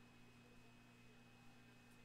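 Near silence: room tone with a faint steady low hum and a thin high whine.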